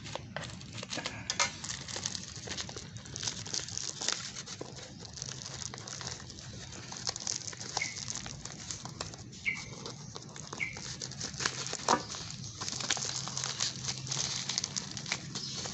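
Cardboard shipping box being worked open by hand: many short scratches, taps and crinkles, with a few brief squeaks near the middle. The box is stubborn to open.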